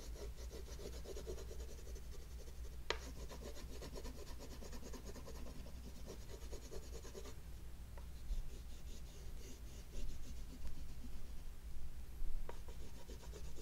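Oil pastel stick held flat and rubbed back and forth over a black gesso-primed wood panel: a steady dry, scratchy rubbing in rapid strokes, stronger in the first half and fainter later, with one light tap about three seconds in.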